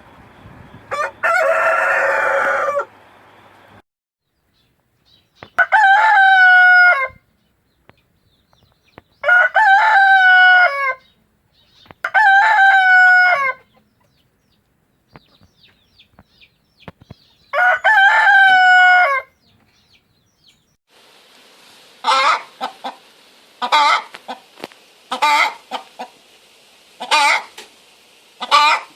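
Rooster crowing, five long crows one after another, each about a second and a half to two seconds. From about 21 s a different recording follows: a chicken's short, sharp clucking calls, about six of them, over a steady hiss.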